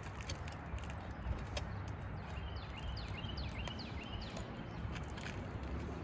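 Scattered taps and clicks of a hand tool prying nails out of asphalt shingles, over a steady low rumble. A bird chirps a quick run of short calls in the middle.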